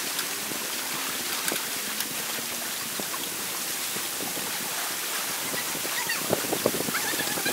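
Steady wash of lake water lapping around the dock, with wind on the microphone and a few light knocks near the end.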